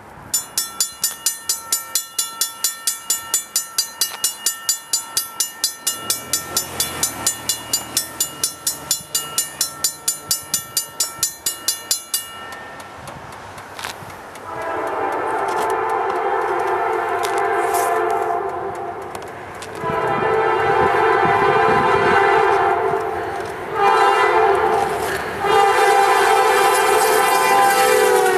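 Grade crossing bell ringing about three strikes a second for roughly the first twelve seconds, while a Norfolk Southern freight locomotive's diesel engine grows louder on approach. The locomotive's air horn then sounds the standard crossing signal, long, long, short, long, its pitch dropping at the end as the locomotive reaches the crossing.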